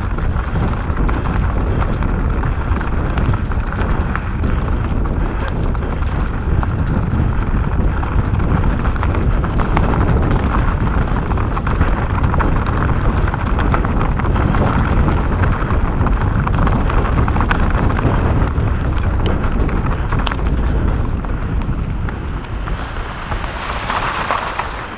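Mountain bike rolling fast down a dirt trail: a steady rush of knobby tyres crackling over dry leaves and rocks, with the bike rattling and wind buffeting the microphone. Near the end it splashes through a shallow stream crossing.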